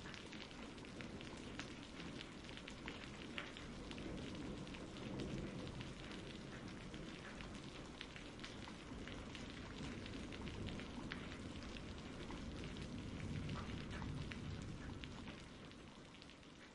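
Steady rain falling, with scattered drip ticks, fading out in the last couple of seconds.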